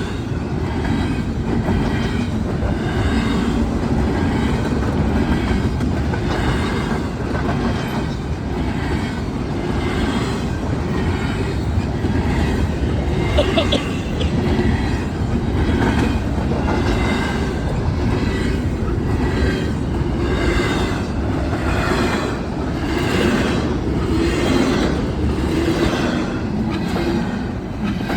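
Freight train cars rolling past, their wheels clacking in a steady rhythm over the rail joints, with a brief high wheel squeal about halfway through.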